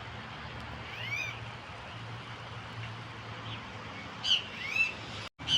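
Wild birds calling: a short arching chirp about a second in, then a cluster of louder, quick chirps near the end, over a steady low outdoor background hum.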